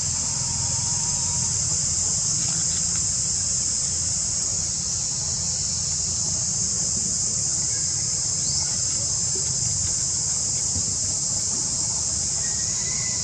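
A steady, high-pitched chorus of insects droning without a break, over a low rumble.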